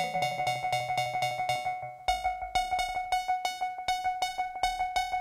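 Eurorack modular synthesizer patch mixed through a Doepfer A-138m matrix mixer: a sequenced, fast-repeating oscillator pattern over a steady high tone, with one oscillator's audio fed back in as audio-rate modulation. Sliding tones settle and a low tone fades in the first two seconds, then the sound cuts out briefly and comes back with a deep bass note.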